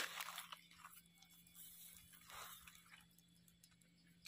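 Faint rustling and crunching of dry leaf litter and soil as a gloved hand digs out and pulls up a small wild mushroom, loudest right at the start, with a second brief scrape about two and a half seconds in and a few small clicks.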